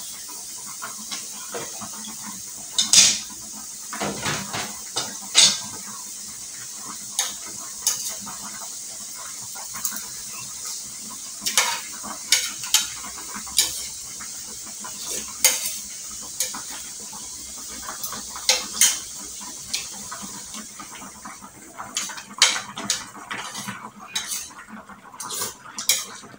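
Metal spoon and ladle clinking and scraping against a metal wok and a ceramic plate, with sharp clinks every second or so, some close together. A steady hiss runs underneath and drops away about three-quarters of the way through.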